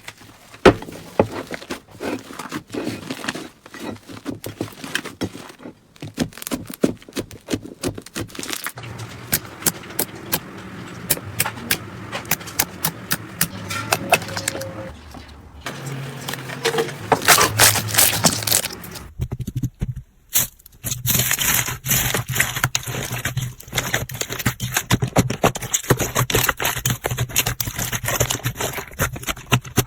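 Slime being pressed, poked and stretched by fingers, giving quick runs of crackling and popping clicks. The texture changes every few seconds, from clip to clip.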